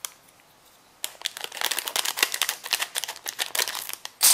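Plastic blind bag crinkling as it is handled and opened, in quick rustles that start about a second in after a near-silent moment. A louder rustle comes near the end.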